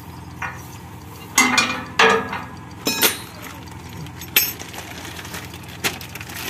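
Steel washers and nuts clinking against each other and against a galvanised steel frame as they are handled and fitted onto anchor bolts. There are about six sharp, irregular clinks, a few with a short ring.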